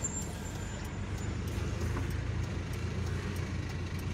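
Steady low rumble of a vehicle engine and passing road traffic, heard from inside a slow-moving vehicle in a traffic queue.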